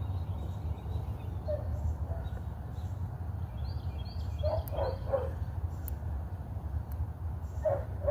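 Birds chirping over a steady low rumble, with a quick run of three short, lower calls about four and a half seconds in and another near the end.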